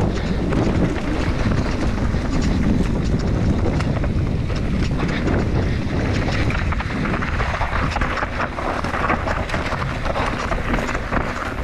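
Enduro mountain bike descending a trail: wind buffeting the microphone over the rush of the tyres on dirt, with frequent clicks and knocks from the bike rattling over rough ground.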